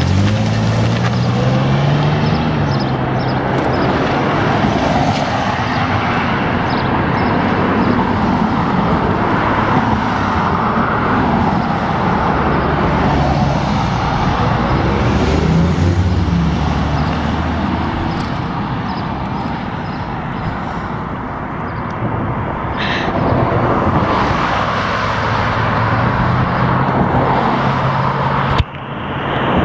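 Street traffic heard from a moving bicycle: cars and pickup trucks running and passing close by, their engine notes rising and falling over a steady rush of road noise.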